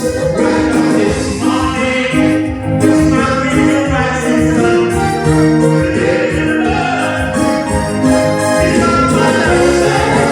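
Live music: singing voices over keyboard accompaniment, with held chords and a steady melody.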